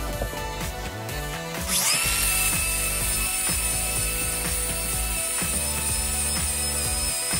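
Cordless angle grinder with an abrasive disc spinning up about two seconds in, then running at a steady whine against the truck's steel frame. Background music plays underneath.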